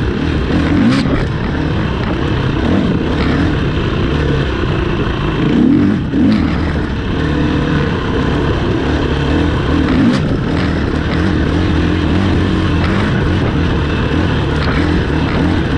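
Racing vehicle engines running steadily, a continuous dense drone with a few brief clicks.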